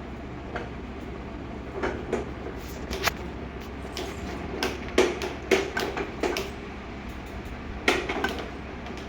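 Young baby hiccuping: a series of short, sudden hics at irregular intervals, loudest around the middle, over a low steady hum.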